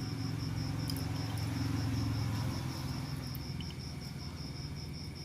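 A cricket chirping steadily, a high pulsing note repeating about five times a second, over a low background rumble.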